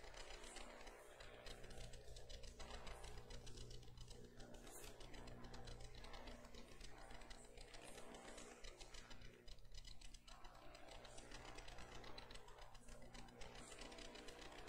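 Near silence: room tone with a steady low hum and faint scattered clicks and rustles.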